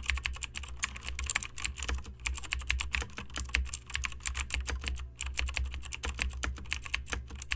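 Rapid computer keyboard typing: a quick, irregular run of key clicks with a couple of short pauses, over a low steady hum.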